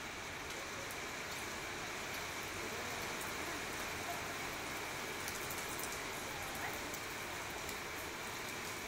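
Steady rain falling on a wet tiled rooftop, an even hiss with scattered ticks of single drops.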